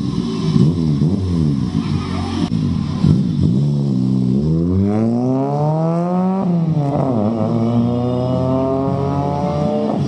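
1993 Toyota Corolla's four-cylinder engine through an aftermarket full exhaust, revved in a few quick blips, then accelerating away. The pitch rises steadily through one gear, drops at an upshift about six and a half seconds in, and rises again in the next gear.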